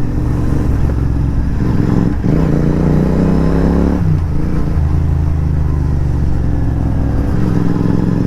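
Royal Enfield 650 parallel-twin motorcycle engine under way, rising in pitch as it accelerates from about two and a half seconds in, dropping suddenly about four seconds in, then running steadily.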